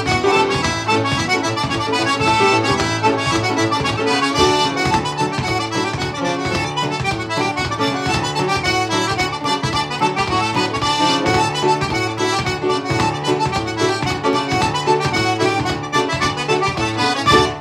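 Button accordion and grand piano playing a traditional Quebec reel together with a steady beat, the tune ending on a last accented note at the very end.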